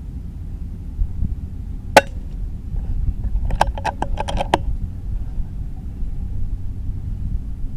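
Wind rumbling on the microphone. About two seconds in comes one sharp crack of a suppressed .22 PCP air rifle shot. A second and a half later there is a quick run of metallic clicks, typical of the rifle's action being cycled.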